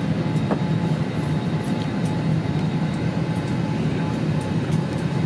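Steady airliner cabin noise inside an Airbus A321neoLR: a constant low hum with an even rush of air, and a few faint ticks.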